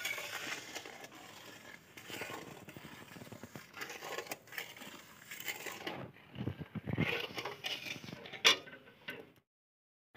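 A spatula scraping and stirring around a non-stick wok of heating sugar syrup, with irregular crackling and clicks. The sound cuts off abruptly about nine seconds in.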